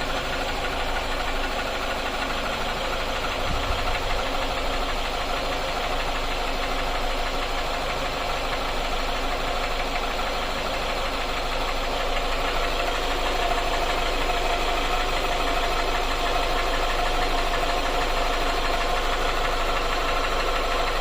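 Hyundai Tucson's G4GC 2.0-litre four-cylinder petrol engine running with a knock whose cause the owner is asking about. It gets slightly louder about halfway through, with a steady whine coming in.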